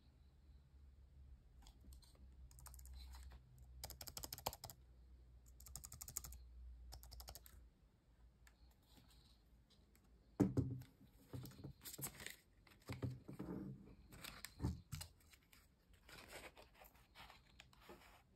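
Handling noise from a slim plastic wireless keyboard and mouse: light crackling and small clicks, then several louder knocks and rattles of plastic against a wooden desk in the second half.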